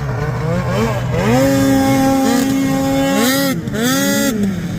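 Snowmobile engine revving: it climbs to high revs about a second in and holds there steadily, eases off briefly twice past the three-second mark, then revs up again.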